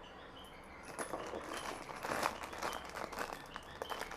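Rustling and light clicking of jewellery and its plastic packaging being handled, starting about a second in and going on in irregular bursts.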